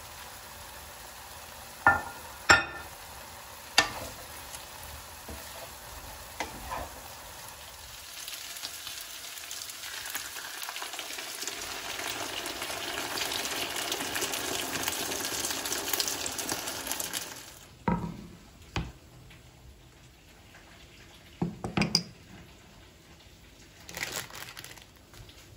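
Food sizzling in a frying pan, with a few sharp knocks in the first few seconds. The sizzle swells louder, then cuts off abruptly about two-thirds of the way through, and a few short clinks of utensils and dishes follow.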